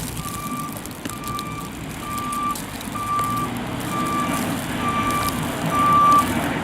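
A vehicle's reversing alarm beeping steadily, about once a second, over the low running of a truck engine that gets louder near the end.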